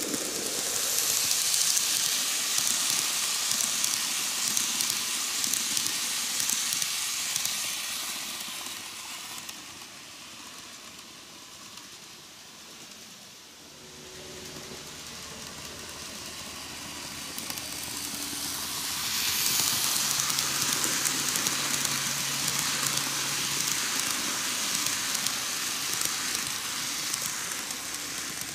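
KATO N-gauge D51 498 model steam locomotive and its passenger coaches running on sectional track: a steady high hiss of wheels on rail and the small drive motor. It is loud for the first several seconds, fades to a faint low hum around the middle, and rises again from about two-thirds of the way through as the train comes past once more.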